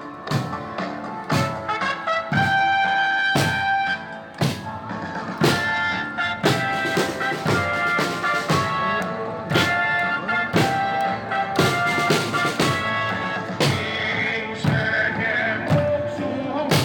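Brass band music: trumpets and trombones playing held melody notes over a steady drum beat struck about once a second.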